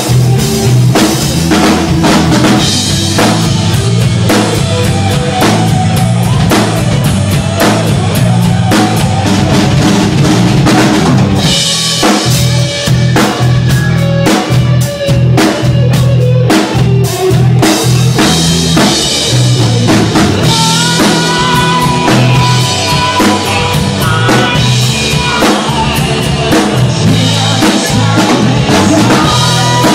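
Rock band music with the drum kit to the fore: dense, steady drum hits over held low bass notes. A long sustained higher note comes in about two-thirds of the way through.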